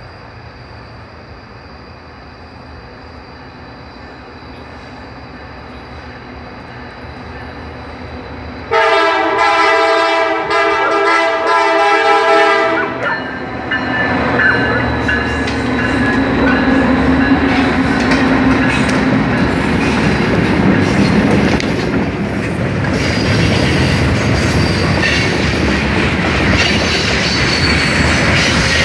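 Norfolk Southern freight train approaching, its diesel locomotive's rumble slowly growing, then the locomotive's air horn sounds one chord for about four seconds starting about nine seconds in. After the horn the locomotive passes and the freight cars roll by with loud, steady wheel and rail noise.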